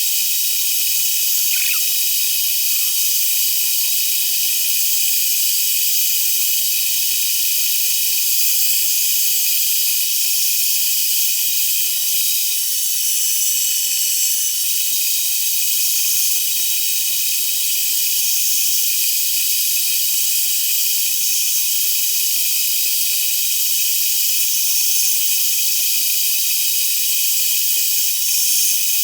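Machine tool running steadily while machining an aluminium part, heard as an unbroken high-pitched hiss with faint steady tones.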